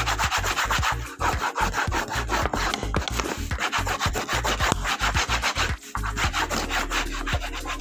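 A hand rubbing briskly back and forth over the covering of a hardcover book board, pressing and smoothing it down. It makes a rapid, scratchy rubbing that stops about six seconds in.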